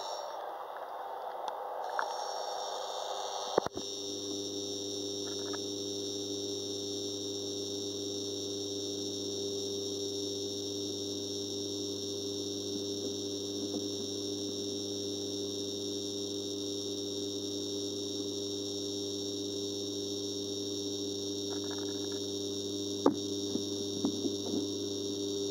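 Aquarium equipment humming steadily with an electrical-sounding hum. A rushing noise runs for the first few seconds, and a few light knocks come about four seconds in and again near the end.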